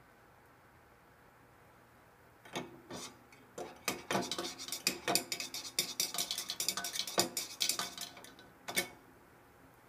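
Thin rod clinking and rattling against the inside of an aluminium soda can as the water in it is stirred: quick irregular clinks starting about two and a half seconds in and thickening in the middle, then a last single clink just before the end.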